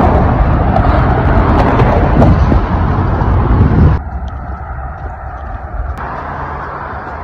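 Road traffic on the George Washington Bridge, a loud steady rush and rumble, cutting off abruptly about four seconds in to a much quieter outdoor background with faint distant traffic.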